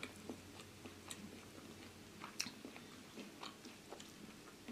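Faint chewing: soft, irregular mouth clicks and smacks of a person eating fried chicken and rice, with one sharper click about two and a half seconds in.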